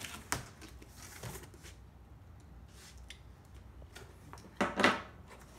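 Cardboard box being opened: light scraping and clicking as the packing tape along the seam is slit, then a loud short tearing rush near the end as the tape gives and the flaps are pulled apart.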